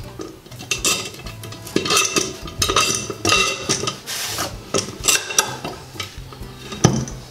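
Metal bar clamp clinking and rattling as it is handled and slid into place through the sink's drain hole, with a series of irregular, ringing metal-on-metal clinks and a loud knock near the end.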